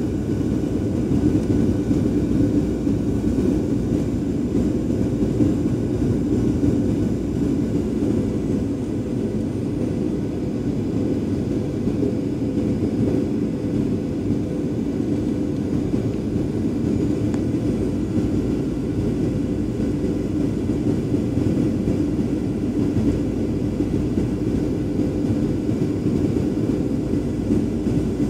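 Steady jet airliner cabin noise beside the wing engine: the turbofan running and the airflow making an even rumble with a faint steady hum. The aircraft is descending on approach to landing.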